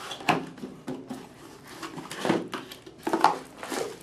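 Cardboard box being opened and handled: the flaps rustle and scrape, with a string of short, irregular knocks as the dome camera is lifted out, the loudest about two and three seconds in.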